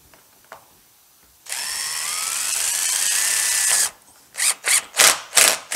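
Cordless drill driving a screw through corrugated metal roofing into a wooden furring strip, its motor whine rising in pitch for about two seconds before it stops abruptly. Several short, sharp bursts follow near the end.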